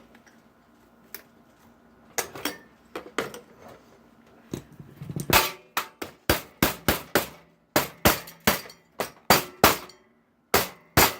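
Sharp blows knocking a heatsink loose from a computer circuit board: a few single knocks, then from about halfway a fast run of about fifteen hard strikes, two to three a second.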